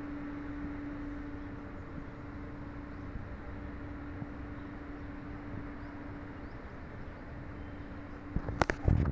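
Steady low background rumble with a constant low hum that stops about six and a half seconds in, then a few loud knocks and clicks near the end.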